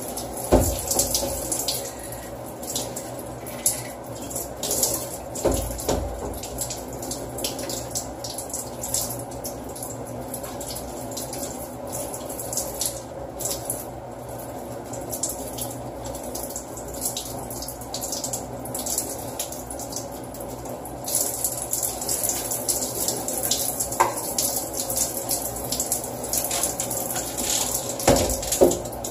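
Hand-held shower head spraying water steadily onto a hard piece of furniture and the shower floor, with splashing. A few dull knocks come through, near the start, about six seconds in and near the end.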